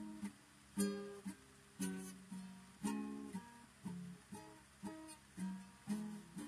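Solo guitar playing a swing and rag style instrumental: a struck chord or bass note about once a second, each ringing and fading, with lighter plucked notes in between.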